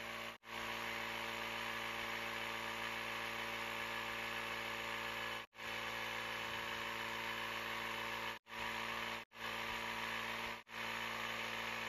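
Handheld electric tire inflator running with a steady motor-and-compressor hum as it pumps air into a fat 20x4.0 e-bike tire. The hum cuts out for an instant several times, mostly near the end.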